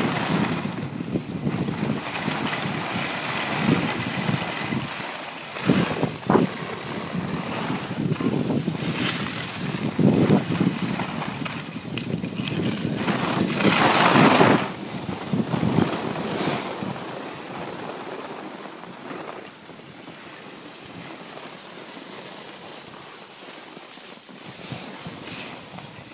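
Wind rushing over a moving phone microphone, mixed with skis scraping and hissing over packed snow on a downhill run. It comes in repeated surges, loudest about fourteen seconds in, and settles to a quieter rush for the last several seconds.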